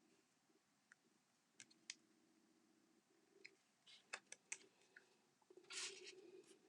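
Faint scattered clicks and taps of paper and cardstock pieces being handled and pressed down, with a short paper rustle near the end.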